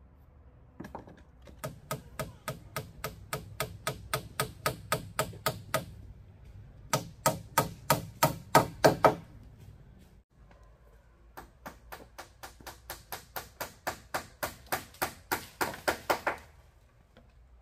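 Quick, evenly spaced knocks of a hand tool striking bamboo poles, about three to four a second, in three runs with the middle run loudest.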